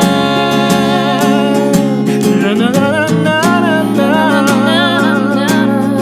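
Acoustic guitar strumming a pop ballad, with a sung note held for about two seconds, then a wordless wavering vocal run over the chords.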